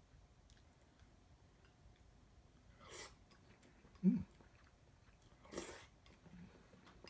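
A person eating raw egg on rice: faint chewing and mouth sounds, with two short hissing noises about three and five and a half seconds in. The loudest sound is a brief low vocal hum about four seconds in.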